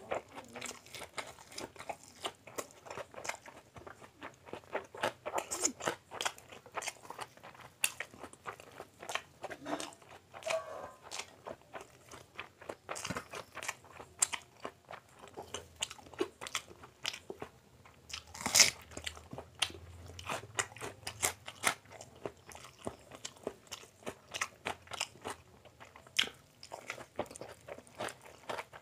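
Close-miked chewing of egg omelette: a steady run of wet mouth smacks and short sharp clicks, with one louder click about two-thirds of the way through.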